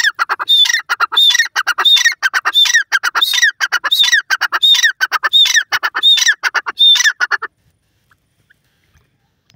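Grey francolin calling: a loud series of harsh, repeated phrases, about three every two seconds, that stops about seven and a half seconds in.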